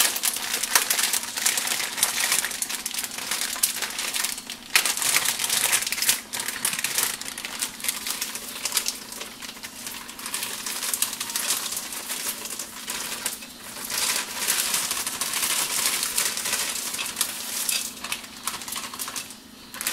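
Frozen green beans shaken out of a crinkling plastic bag into a crock pot, the hard frozen pieces rattling in quick, uneven clicks. A faint steady hum runs underneath.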